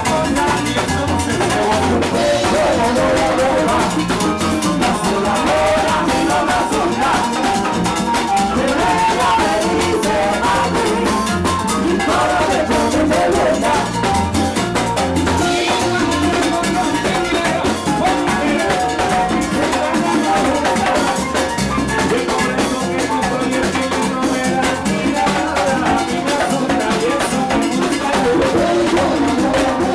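Live plena music: panderetas (hand-held plena frame drums) and a güiro driving the rhythm over drum kit and congas, with singing.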